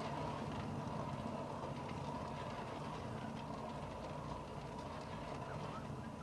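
A small electric motor running steadily: a low hum with a thin, steady whine above it.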